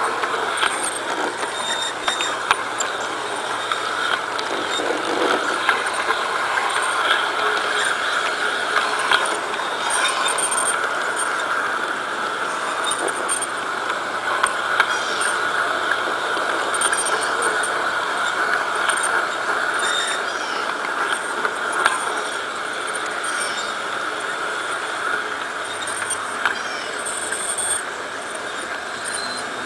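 LGB model streetcar running along garden-railway track: the steady whir of its small electric motor and gearing, with scattered light clicks.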